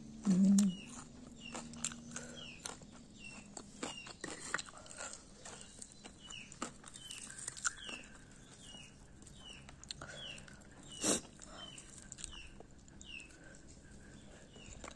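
Chewing crispy fried tofu: scattered small crunches and mouth clicks, with one louder crunch near the end. A steady series of short, high, falling chirps runs along underneath.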